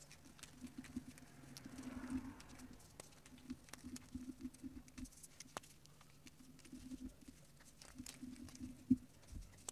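Reformed gym chalk crumbled and rubbed between the fingers over a heap of chalk powder: faint, soft crunching with many small crackles scattered throughout.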